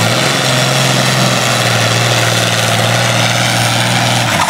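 Diesel farm tractor engine running flat out under heavy load as it drags a pulling sled. It is a loud, steady drone that drops away near the end as the pull finishes.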